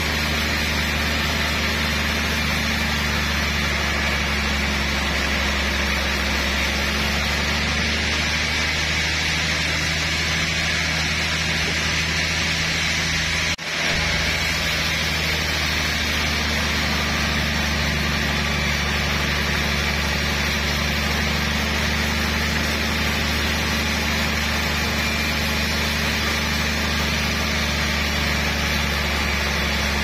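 Large Haita Iron Works vertical band sawmill running steadily, its blade sawing lengthwise through a trembesi (rain tree) log: a constant machine hum under a hiss of cutting. The sound drops out for a split second about halfway through, then carries on.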